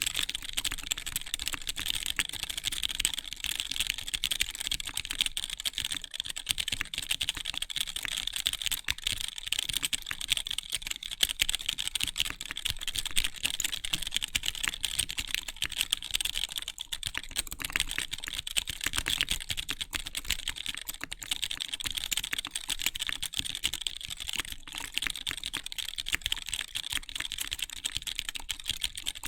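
Mechanical keyboard with stock Gateron Clear linear switches being typed on fast and without pause: a dense, continuous run of keystroke clacks.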